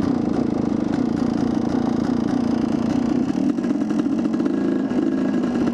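Dirt bike engine running steadily as it is ridden along a dirt trail, heard on board the bike, its pitch wavering only slightly.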